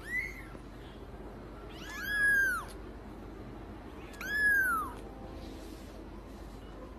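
Young kitten meowing: a short high mew just at the start, then two longer meows about two and four and a half seconds in, each rising and then falling in pitch.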